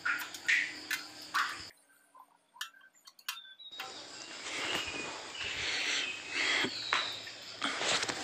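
Light metallic clicks and clinks of a T-handle socket wrench being handled against the engine's recoil-starter housing. Short high chirps sound in the background, and the sound drops out almost completely for about two seconds near the start.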